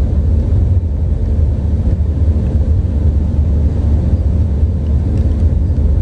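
Steady low rumble of a vehicle driving on the highway, heard from inside it: engine and tyre noise.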